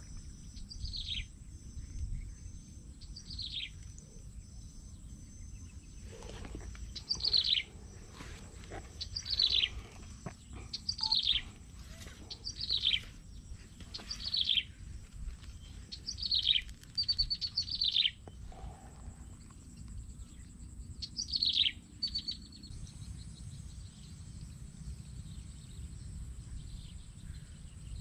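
A bird calling over and over: short whistles that each slide quickly down in pitch, about one every two seconds, ending a little after twenty seconds.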